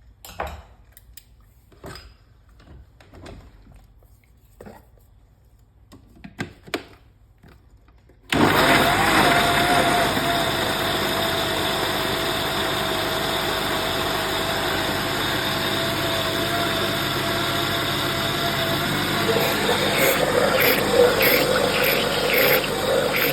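Several light clicks and knocks. About eight seconds in, an electric blender switches on and runs steadily at high speed, blending frozen berries and banana into a smoothie. Near the end its pitch drops a little and the sound starts to pulse.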